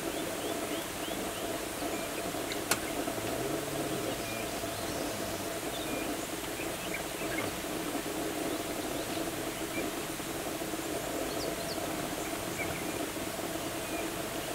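Outdoor ambience: a steady low hum with faint, short high chirps scattered through it, and one sharp click about three seconds in.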